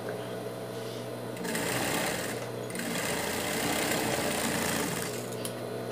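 Industrial straight-stitch sewing machine stitching a seam, running at a steady speed, picking up a little after about a second and a half, and stopping about five seconds in.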